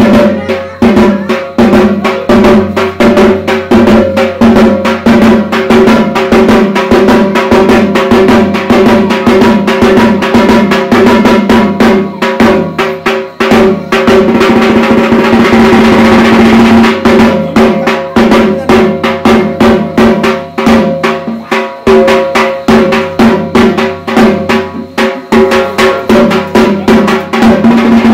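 Dhak drums beaten fast and without a break, with steady ringing tones underneath: drumming for the Durga Puja evening aarti.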